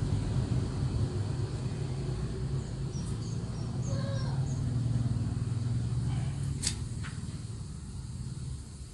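Steady low engine-like rumble in the background, fading slightly near the end, with a bird's short run of brief calls about three to four seconds in and two sharp clicks close together near seven seconds.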